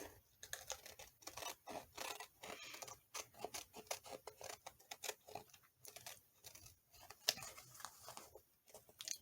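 Scissors cutting paper in short, quiet, irregular snips.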